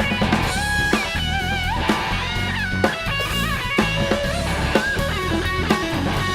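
Rock instrumental music: electric guitar playing a lead line with bent, wavering notes over bass and a steady drum beat.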